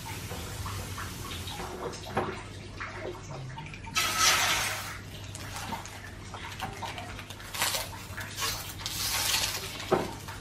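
Food frying in hot oil in a pan: a steady sizzle that flares up loudly about four seconds in and again near the end, with light spatula scrapes and a sharp knock against the pan just before the end.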